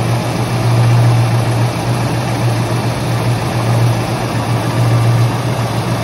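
1991 Ford Mustang GT's 5.0 V8 idling steadily in neutral, with a metallic rattle from the clutch fork bouncing erratically in the T-5 bell housing, heard with the inspection cover off. The owner takes it for a sign of a seized, failed throwout bearing.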